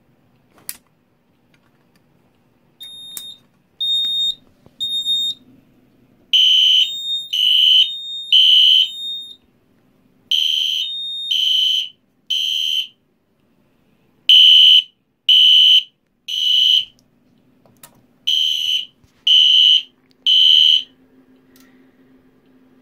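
EST Genesis horn strobe sounding a fire alarm in a temporal-3 pattern: four rounds of three short loud blasts, each round followed by a pause, then it stops about 21 seconds in. It follows a click just under a second in, as the EST SIGA-270 pull station is pulled, and three short higher beeps.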